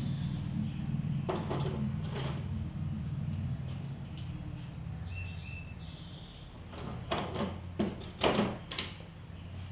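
Scattered knocks and clatter of someone moving about and handling things, a louder run of them about seven to nine seconds in, over a steady low hum.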